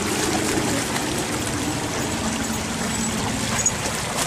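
Shallow stream of water running through a stone-lined channel, a steady trickle.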